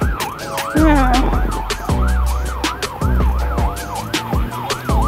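Background music with a steady beat and deep bass, carrying a fast, evenly repeating siren-like wail, about three sweeps a second.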